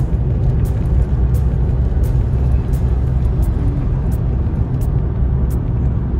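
Steady low rumble of a car driving on the road, with music playing over it: a crisp tick on the beat about every 0.7 seconds.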